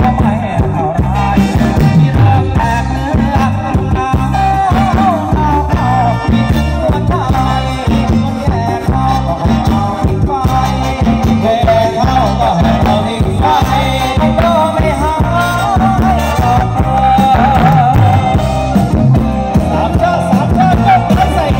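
Thai ramwong dance music from a band, played loudly through a PA: a steady drum and bass beat with a wavering melody over it.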